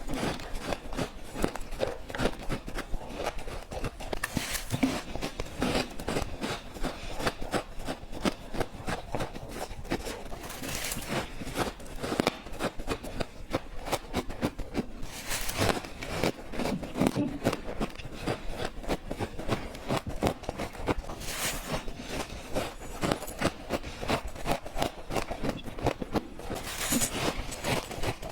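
Freezer frost being bitten and chewed: a dense, continuous run of crisp crunches, with a louder burst about every five or six seconds.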